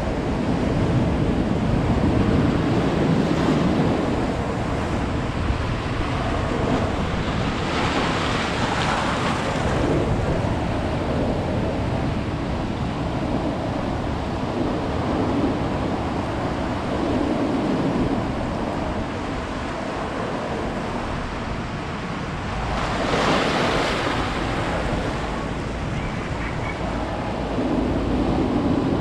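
Ocean surf on a beach: a steady rush of waves, with two louder breaking waves washing in, about eight seconds in and again near twenty-three seconds.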